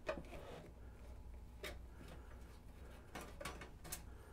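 A few faint clicks and taps of a screwdriver working the screws of the radio's metal dial plate, three of them close together near the end, over a low steady hum.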